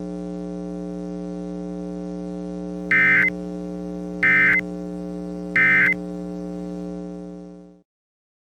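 Emergency Alert System end-of-message signal: three short bursts of shrill data tones about a second apart, over a steady electrical hum. The hum fades out and goes silent near the end.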